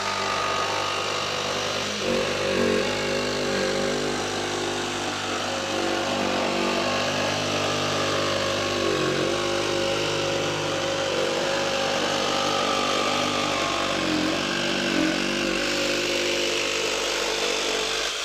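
Milwaukee M12 FUEL FJS cordless brushless jigsaw cutting through 15 mm plywood: a steady motor and blade whine, its pitch sagging briefly a few times.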